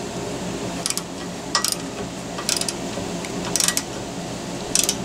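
Wrench tightening the bolts of a steel bracket on a trailer bumper: short, sharp metal clicks, a quick pair about once a second, five times, over a steady low background noise.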